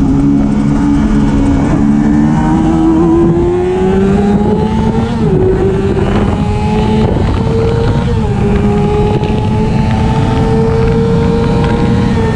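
1999 Yamaha YZF-R6's 600 cc inline-four engine, heard from a camera mounted on the bike, accelerating hard down a straight: the pitch climbs, drops at upshifts about five and eight seconds in, then climbs again. A heavy rush of wind noise runs underneath.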